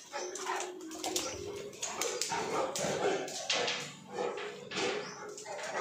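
A Cane Corso vocalizing in a run of short, uneven sounds, several a second.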